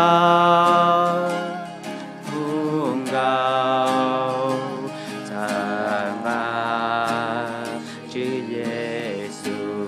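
Music with singing: long, slightly wavering held notes that move to a new pitch every second or two, with a steady accompaniment underneath.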